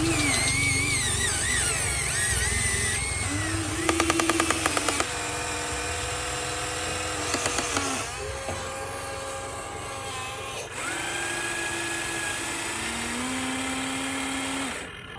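Small electric motors of a Huina radio-controlled toy excavator whining, the pitch changing as different motions start and stop. A rapid clicking rattle comes about four seconds in and lasts about a second, with a shorter one near the middle.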